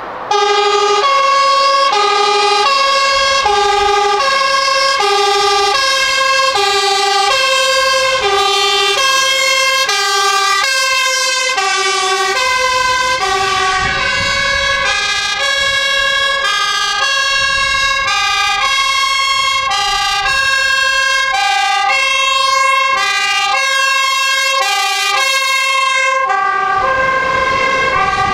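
Two-tone sirens of fire engines on an emergency run, a high note and a low note alternating about every second and a half, starting abruptly just after the start. From about halfway through a second siren overlaps out of step as the trucks drive past.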